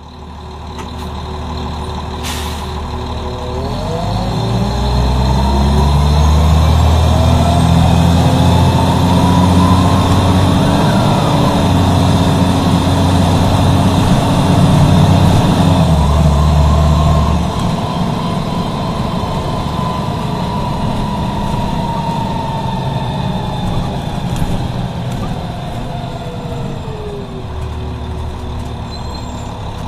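Cummins M11E diesel engine of a 1996 Nova RTS transit bus pulling away under load through its Allison automatic transmission, with a whine that climbs with speed. About halfway through the engine lets off and the bus coasts, the whine falling away near the end.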